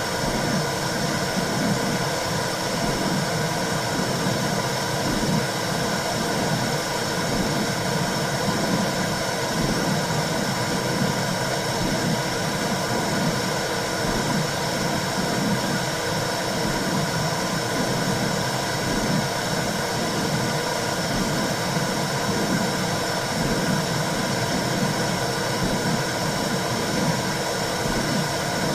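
Womb sound for soothing babies: a steady low whooshing rush with a regular throbbing pulse, like a mother's heartbeat and blood flow heard from inside the womb.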